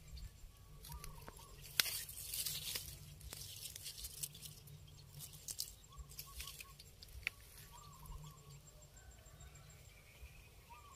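Faint rustling and crackling of tall grass leaves being brushed and handled, in a few short bursts, over a low rumble, with faint bird chirps.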